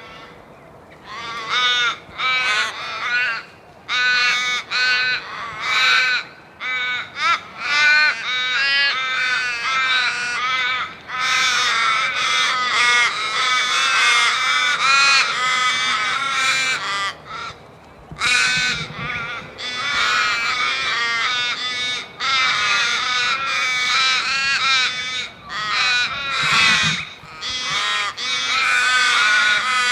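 A flock of crows cawing. Separate caws come first, then from about ten seconds in many calls overlap into a near-continuous chorus, with a short lull just past halfway.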